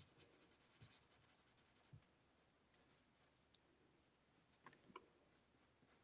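Faint scratching of an alcohol-marker nib on cardstock: a quick run of short strokes in the first second, then a few scattered strokes, as a gnome's beard is coloured in.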